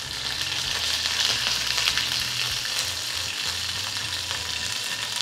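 Curry leaves and fennel seeds sizzling in a little hot oil in a pan: a steady high hiss with a few small crackles.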